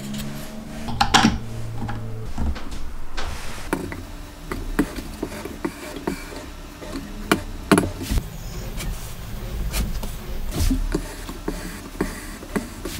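Hands handling small wooden and aluminium jig parts and setting them on a wooden workbench: scattered light clicks and knocks, a few sharper taps among them.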